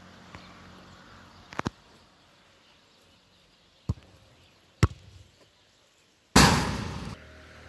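Sharp thuds of a football being kicked: a quick double thud about one and a half seconds in, then single kicks about four and five seconds in. Near the end comes a loud rushing burst that fades and then cuts off suddenly.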